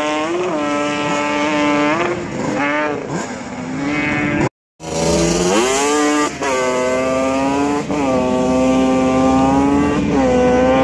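Sport quad engines revving hard as the ATVs accelerate up a dirt hill-climb course, the pitch climbing and then dropping back at each gear change. The sound cuts out for a moment about halfway through.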